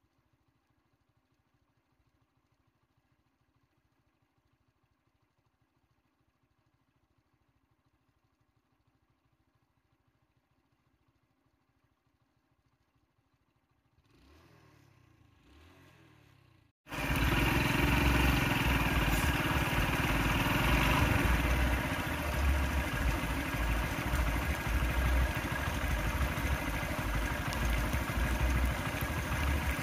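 Near silence for roughly the first half. Then the sound jumps suddenly to loud, steady heavy rain mixed with a vehicle engine idling, with an uneven low rumble underneath.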